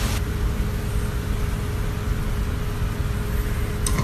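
Steady mechanical hum with a low rumble and a faint constant tone under it; a single sharp click near the end.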